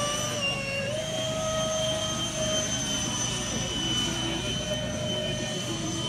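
Electric ducted fans of a Freewing Eurofighter RC jet whining in flight, the pitch rising about a second in and then holding steady.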